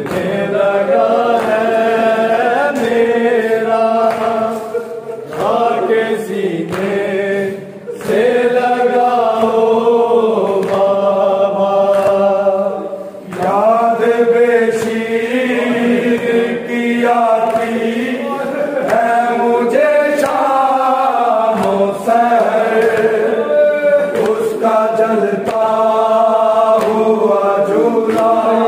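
A group of voices chanting a noha, a Shia mourning lament, in long drawn-out phrases with short breaks between them.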